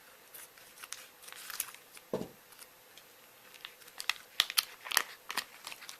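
Plastic meat packaging being cut and pulled open: quiet, scattered crinkling and small clicks, busier in the second half, with a soft knock about two seconds in.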